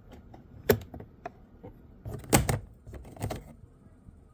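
Plastic interior door trim of a 2012 Kia Sportage being pried with a tool. There is a sharp click about two-thirds of a second in, then a cluster of clicks and snaps from about two to three and a half seconds in, as the trim's clips let go.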